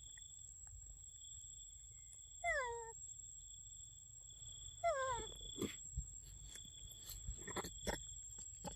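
Two short high monkey calls from a macaque, about two and a half and five seconds in, each dropping sharply in pitch. Then a run of light clicks and knocks through the last few seconds.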